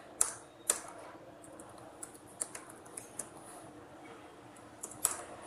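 Computer keyboard keys tapped one at a time as a word is typed: two sharp clicks in the first second, a run of lighter taps a couple of seconds in, and another sharp click near the end.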